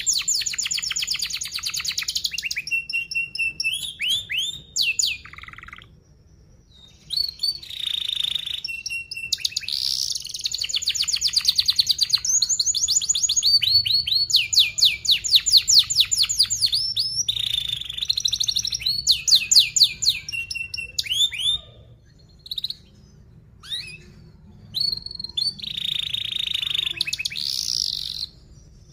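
Young domestic canary singing in fast, dense trills of rapidly repeated notes, phrase after phrase. The song breaks off for a second or two about six seconds in, and again for a few seconds past the twenty-second mark.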